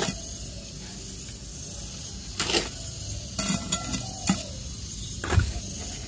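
A small metal trowel scooping dry cocopeat and tipping it into an enamel bowl: rustling scrapes and a few knocks of the trowel against the bowls, the loudest near the end.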